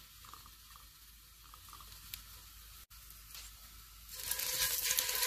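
Beef short rib laid into hot oil in an enamelled pot, starting to sizzle loudly about four seconds in as it begins to brown; before that, only faint quiet.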